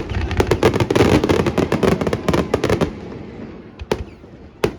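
Fireworks going off: a rapid barrage of bangs and crackles for about three seconds, thinning to a few single bangs near the end.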